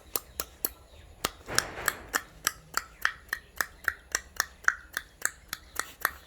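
A steady run of sharp clicks, about four a second, with a brief hiss about a second and a half in.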